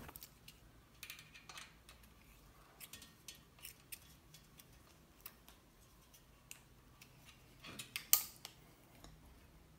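Faint, irregular metallic clicks and ticks of a hand tool tightening the cable clamp bolt on a bicycle V-brake arm, with one louder click about eight seconds in.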